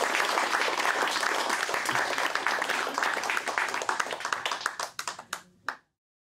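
Audience applauding, the clapping thinning out to a few last separate claps before the sound cuts off abruptly near the end.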